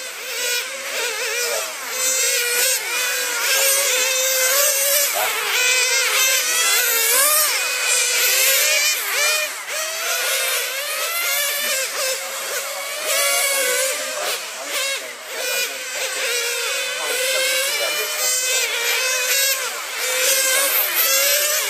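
Several radio-controlled racing cars lapping the track, their small high-revving engines whining and overlapping, each rising and falling in pitch as it accelerates and brakes through the corners.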